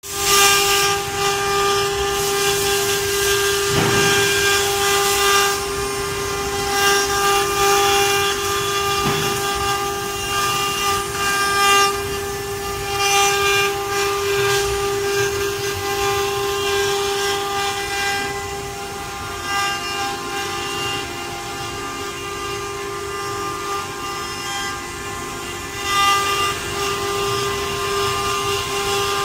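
CNC wood-carving router running: a steady, high spindle whine with overtones, and a hiss that swells and fades as the bit cuts into the wood.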